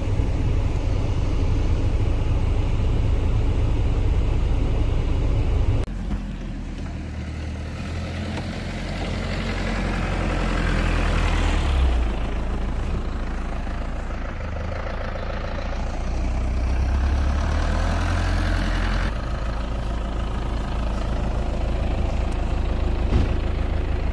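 Isuzu Elf crane truck's engine running steadily. It drops, then picks up and shifts pitch several times, as it does while the truck's hydraulic loader crane is worked.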